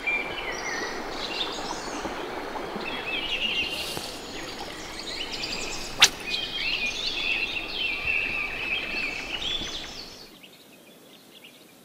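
Songbirds singing over a steady rushing outdoor noise, with one sharp click about halfway through. The rushing noise falls away near the end, leaving it much quieter.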